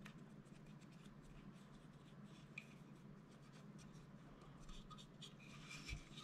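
Faint scratching and rubbing of an oiled cotton swab worked along the rails of a polymer pistol frame (Springfield XD(m) 9mm), with small ticks, busiest near the end.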